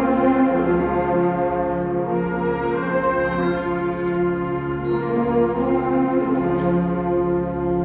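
School concert band holding slow, sustained chords, with three ringing bell strikes from the percussion about five to six and a half seconds in.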